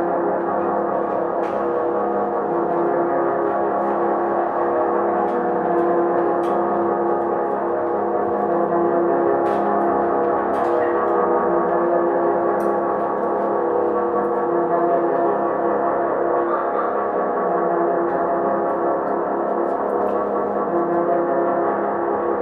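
A steady, gong-like ringing drone with many overtones, holding at an even level without dying away, with a few faint clicks over it.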